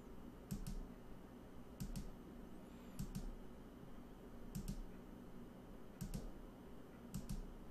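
Faint computer-keyboard clicks in six quick pairs, about one pair every second and a half, as keys are pressed to step through photos.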